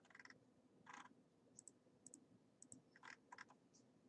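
Faint clicking of a computer mouse button, irregularly spaced, some clicks coming in quick close pairs, as lines are clicked away with a trim tool.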